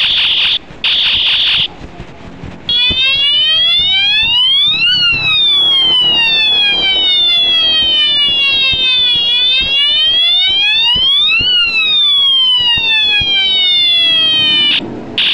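Battery-powered police-style siren horn on a bicycle's handlebar: two short, steady, high electronic beeps, then a loud wailing siren that slowly rises and falls twice before cutting off near the end.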